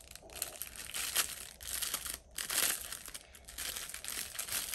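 Clear plastic wrapper crinkling in irregular bursts as it is worked open by hand to free a makeup sponge.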